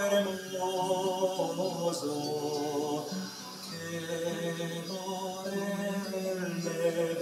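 Background music: a song with a singing voice holding long, wavering notes over an accompaniment.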